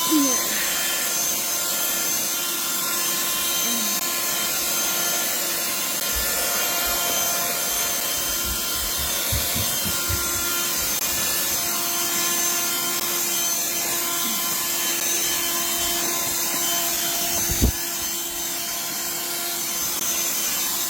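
Black+Decker Dustbuster QuickClean cordless handheld vacuum switched on, its motor whining up to speed and then running steadily with a high whine over rushing air as it sucks up dirt. A few low bumps come partway through and a single sharp knock near the end.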